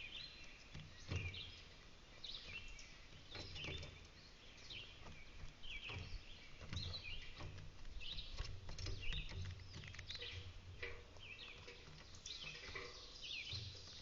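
Small songbirds chirping in many short, rapid calls, with scattered soft knocks and taps throughout.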